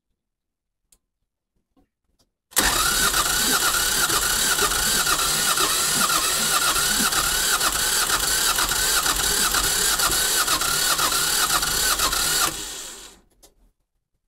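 Site dumper's engine turned over on its starter motor for about ten seconds, heard close at the exhaust pipe: a whine rising and falling a few times a second with each compression, as the engine cranks without catching. It stops suddenly and winds down when the starter is let go.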